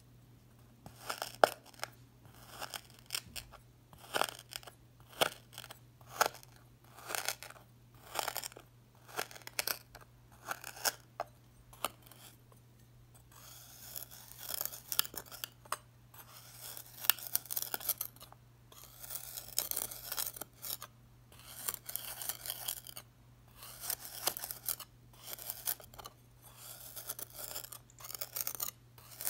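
A kitchen knife slicing down through a packed slab of crunchy sand, each stroke a crisp crunch. For the first twelve seconds the cuts come about once a second, then they become longer scraping crunches as the blade is dragged and pressed through the crumbling slab.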